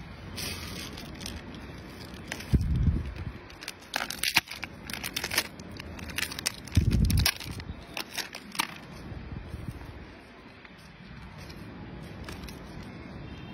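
Plastic snack wrapper crinkling and crackling in sharp bursts as a macaque handles it and pulls food from it, busiest in the middle of the stretch. Two short low rumbles, about three and seven seconds in, are louder than the crinkling.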